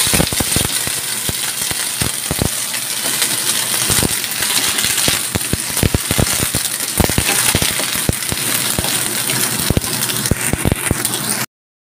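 Green beans and baby corn stir-frying in a stainless steel wok: steady sizzling with frequent clicks and scrapes of a wooden spatula against the pan. The sound breaks off abruptly just before the end.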